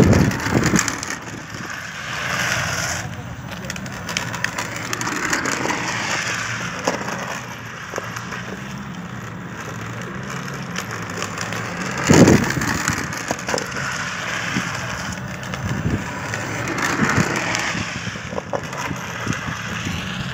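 Drift trike's hard plastic rear wheels scraping and sliding across asphalt in waves as it drifts through turns, with two heavy thumps, one at the start and a louder one about twelve seconds in.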